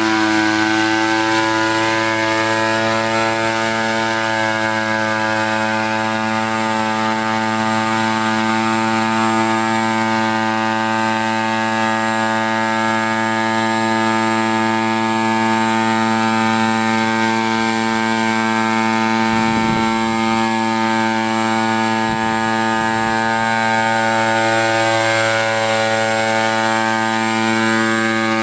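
Small gasoline engine of a hybrid pentacopter drone running steadily in flight, its pitch holding even throughout.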